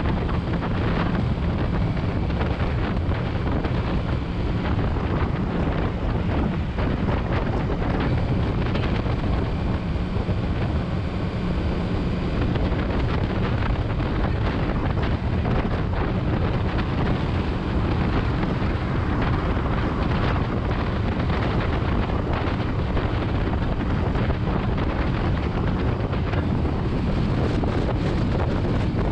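Motorcycle engine running at a steady cruising speed, heavily buffeted by wind on the microphone.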